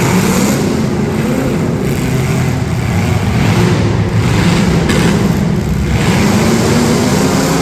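Street-stock demolition derby cars' engines running and revving, a loud continuous rumble.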